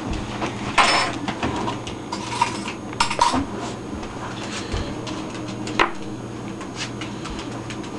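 A toddler's spoon clattering on a high-chair tray and dish: a handful of irregular knocks and short scrapes.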